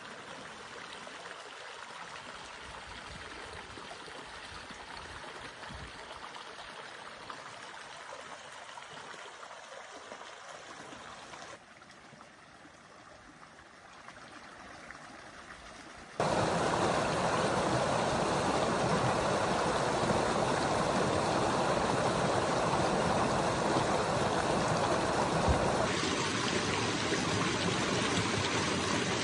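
Shallow mountain stream running over rocks: a steady rush of water, quieter at first and much louder and fuller from about sixteen seconds in.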